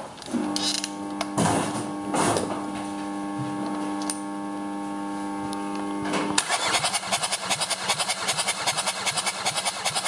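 Kia D4HA 2.0-litre turbodiesel on a stand being turned over for a compression test on its fourth cylinder. First a steady mechanical hum with a few sharp clicks, then from about six seconds in an even pulsing of about five beats a second as the engine cranks and the gauge builds pressure.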